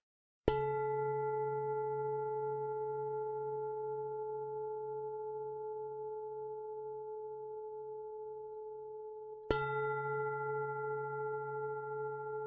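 Struck bell-like metal tone, rung twice about nine seconds apart; each strike rings on with a slow wobble over a low hum and fades gradually.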